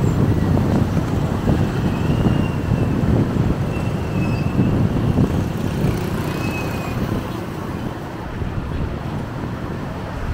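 Road traffic: a steady rumble of passing vehicles, with a few faint, short high tones over it.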